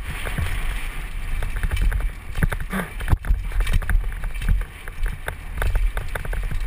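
Downhill mountain bike being ridden fast over a rough dirt trail: the bike rattles and clatters in a quick, irregular run of sharp clicks and knocks, with a harder knock about three seconds in, over a steady wind rumble on the helmet camera's microphone.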